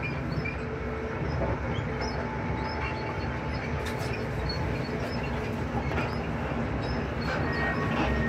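Passenger train running at speed, heard from inside the carriage: a steady low rumble of wheels on the track with a faint hum and a few light clicks.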